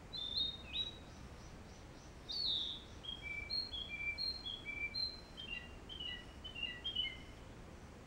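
Small songbirds calling in woodland: short whistled chirps, a downward-slurred phrase about two seconds in, then a quick run of short clear notes at varying pitches that stops about seven and a half seconds in, over a faint steady hiss.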